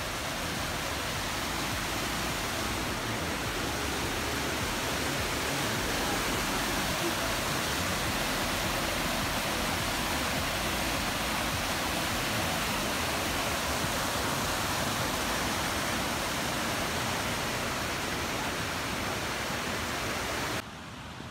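A mountain stream rushing and cascading over boulders, a steady full white-water rush that cuts off abruptly near the end.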